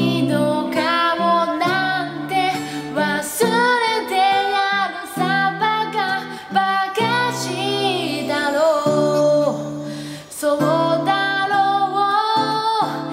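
A voice singing a slow Japanese pop ballad over an acoustic guitar accompaniment, with phrases breaking briefly between lines.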